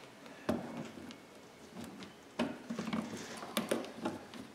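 Trunk carpet liner and its trim being pulled and worked around the trunk lid hinge by hand: a low rustle with a few sharp clicks and knocks, about half a second, two and a half and three and a half seconds in.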